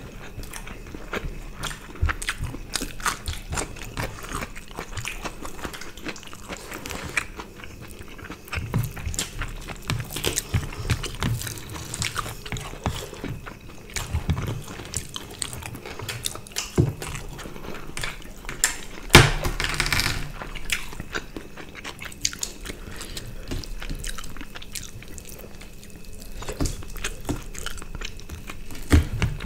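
Eating sounds of two people eating rice and roast chicken by hand: chewing, biting and small wet mouth and finger clicks, with one louder burst about two-thirds of the way through.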